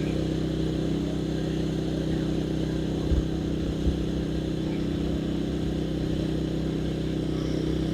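Genmax GM12000ED generator's 458cc single-cylinder engine running steadily on propane at its full governed speed, with no eco mode.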